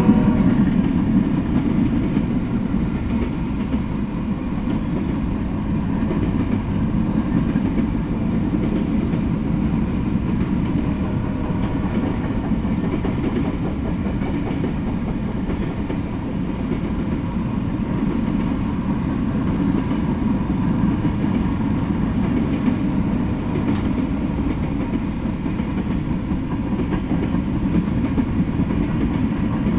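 A mixed freight train of covered hoppers, boxcars and tank cars rolling past on the rails: a steady, continuous rumble and rattle of steel wheels.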